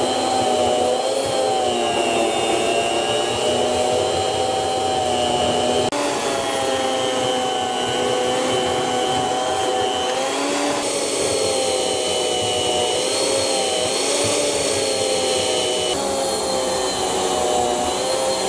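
Electric food slicer's motor and circular blade running continuously while slicing a loaf of bread, its whine wavering and dipping in pitch now and then as the blade cuts through the loaf.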